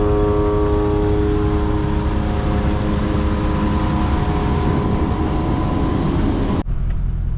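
Self-propelled forage harvester running steadily while chopping corn for silage, a loud steady machine noise with a whine that fades over the first couple of seconds. The sound changes abruptly near the end.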